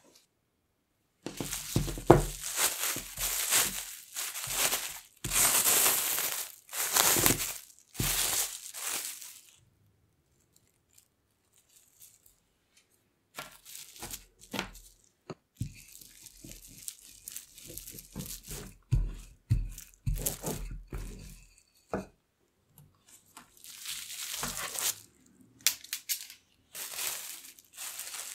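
Plastic cling film crinkling and rustling as it is handled around a block of tart dough. It comes in loud bursts through the first ten seconds and again near the end, with quieter rustling and a few soft knocks in between.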